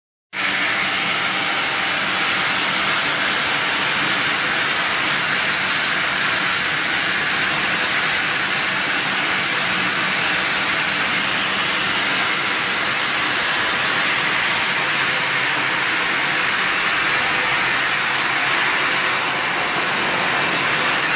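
Large saw blade cutting basalt: a steady, loud hissing grind that holds unbroken, with a faint steady hum beneath.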